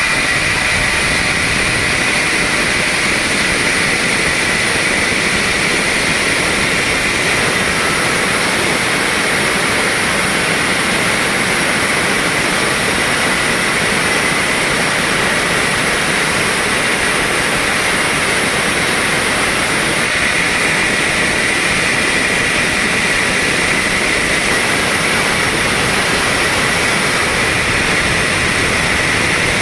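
Sawmill saw running steadily and loud, a constant high whine over dense noise with no pauses.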